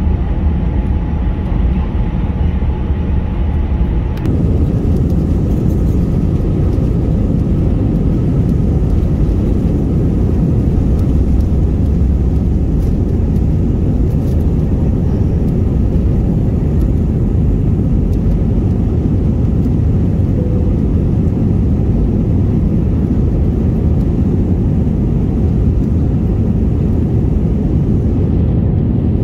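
Jet airliner cabin noise during takeoff and climb: a loud, steady rumble of engines and airflow. It jumps louder about four seconds in and then holds steady.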